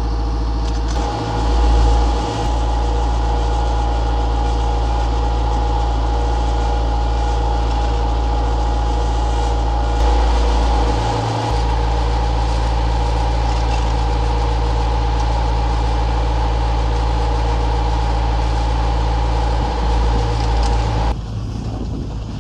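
Diesel drive of a Heuss short T-bar ski lift running steadily: a constant engine drone with a steady mechanical whine from the drive, swelling twice with a low rumble. Near the end it gives way abruptly to wind rush.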